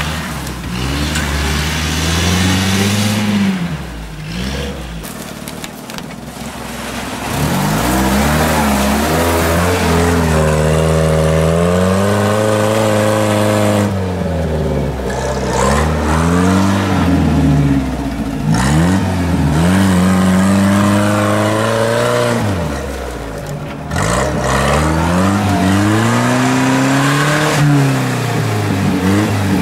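UAZ-469 off-roader's engine revving hard under load as it churns through deep mud, rising and falling in pitch over and over, with brief drops between the pushes.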